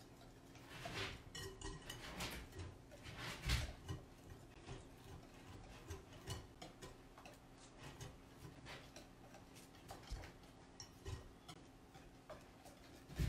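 Wire whisk beating thin crepe batter smooth in a glass mixing bowl: faint, irregular clicks and scrapes of the wires against the glass, with a louder knock about three and a half seconds in.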